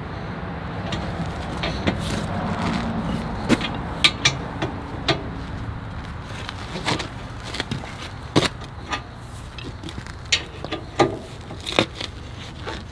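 Irregular knocks, taps and rustles as a rubber snow deflector is handled and pressed against the top of a V-plow's moldboard, over a steady low background noise.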